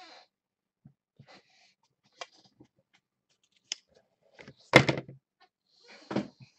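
Handling noise from a comic book and cardboard being moved on a table: a few small clicks and knocks, then a louder thump about five seconds in and another shortly before the end.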